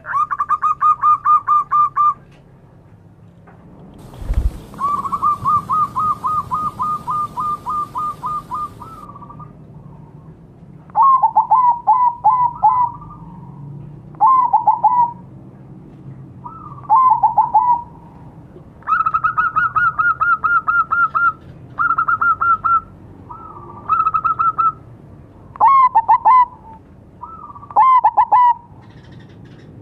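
Zebra doves cooing in bouts of rapid, repeated staccato notes, two voices taking turns, one a little higher and steadier, the other lower with hooked notes. A knock about four seconds in, followed by a few seconds of hiss.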